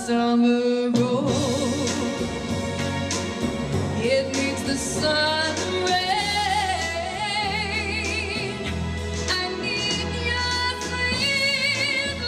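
A woman sings a 1960s pop-soul song with vibrato over a band backing. About a second in, the music cuts from one song to another.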